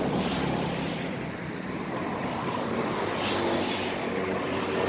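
Steady motor-vehicle engine and traffic noise.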